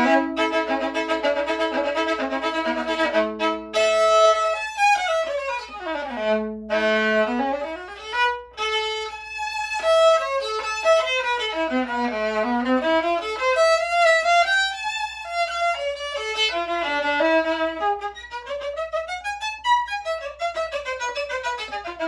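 The Tabolin, an experimental violin with drum-skin panels set into its body, being bowed for the first time, its panels not yet weighted. It opens with held chords of several notes for about four seconds, then plays quick runs sweeping down to the low end and back up, over and over.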